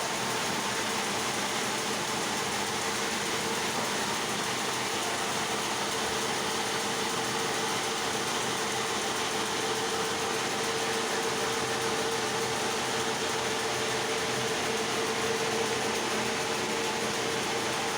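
Sawmill machinery running steadily: a constant mechanical hum with one held tone that grows a little louder in the second half.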